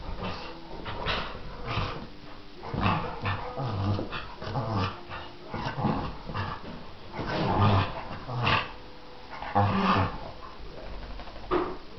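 Dog growling and grumbling in irregular bursts while rubbing itself dry against a blanket on a sofa after a bath, with the rustle of the fabric under it.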